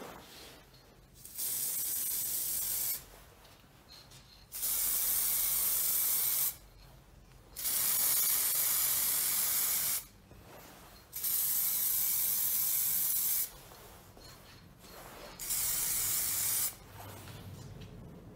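Aerosol spray paint can spraying black paint in five separate bursts of hiss, each one to two and a half seconds long, with short pauses between.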